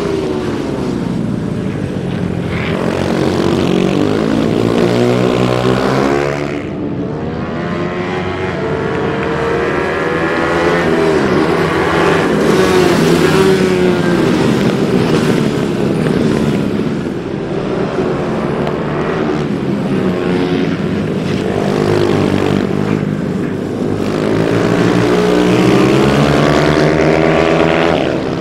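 Several small racing minibikes' engines revving hard as they race past, overlapping. The pitch climbs and drops back again and again.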